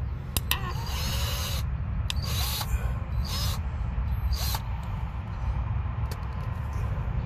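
Cordless drill-driver run in four short bursts, each under a second, as a long wood screw is started, with a few clicks just before the first, over a steady low rumble.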